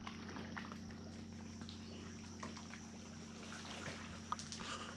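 Quiet rocky-shore ambience: a faint steady low hum under scattered small ticks and chirps, with water lapping softly among the rocks.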